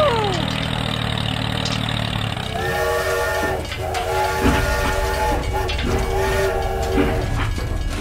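A low steady engine hum for the first two and a half seconds, then a toy steam train's whistle sounding three times, each toot about a second long and made of several tones at once, over a low rumbling run.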